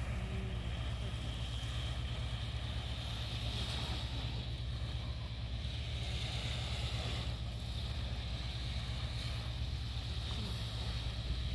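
Wind buffeting the microphone as a steady low rumble, over the soft wash of small waves on a pebbly shore.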